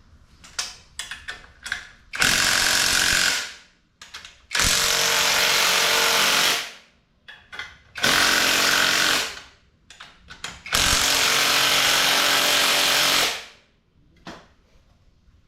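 Power impact wrench running in four long runs of about one to two and a half seconds each, driving down the threaded rods of a coil-spring compressor to compress a front strut's spring. Light clicks and knocks come between the runs.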